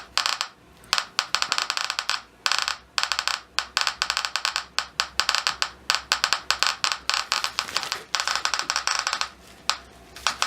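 Eberline E-520 Geiger counter sounding through its SK-1 clicker: rapid, irregular clicks that bunch into dense bursts with short lulls. It is a high count rate from a piece of uranium ore held to the probe.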